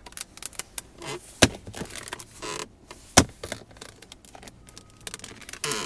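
Clicks and knocks of a car's center console armrest lid being unlatched and handled, with two sharp latch clicks, one about a second and a half in and another about a second and a half later, among smaller rattles and scrapes.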